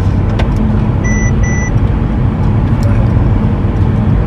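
Steady low rumble of a car's engine and road noise heard inside the cabin, with two short, identical high electronic beeps about a second in.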